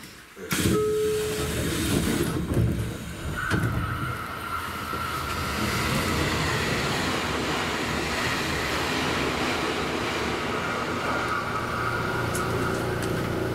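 A train passing on the adjacent track, heard from inside the cab of a stopped train. Rumble and rail noise start suddenly about half a second in and stay steady, with a thin whine running through most of the pass.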